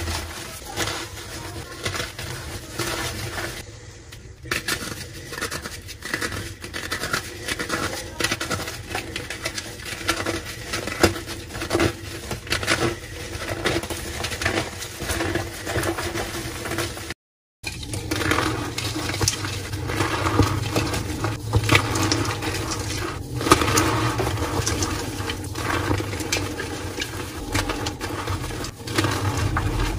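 Blocks of gym chalk crushed and crumbled by hand into loose chalk powder: a dense run of crunching and crackling as the blocks break and the powder is squeezed. The sound cuts out for a moment about halfway through, then the crunching resumes.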